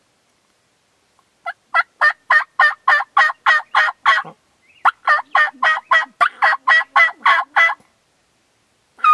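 Turkey yelping: two quick runs of evenly spaced yelps, about four a second, with a short break between them, followed right at the end by the start of a higher, sliding call.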